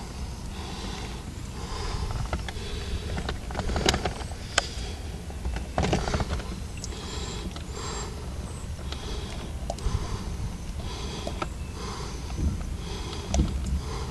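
Camera handling noise with soft breathing close to the microphone, coming and going about once a second over a low steady rumble, with a few sharp clicks around the middle.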